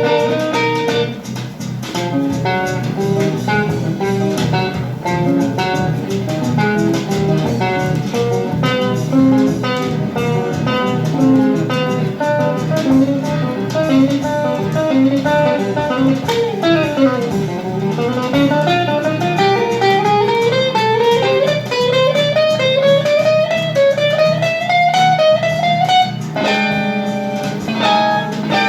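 Rock music led by a busy plucked guitar playing fast runs over a steady bass line. In the second half a long run of notes climbs steadily higher.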